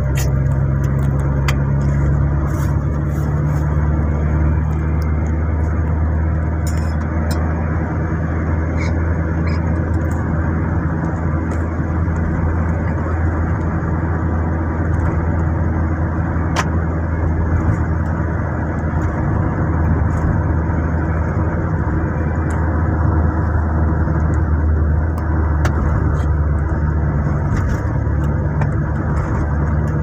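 Steady engine drone and tyre-on-road noise inside a car's cabin at cruising speed, with a few faint rattles.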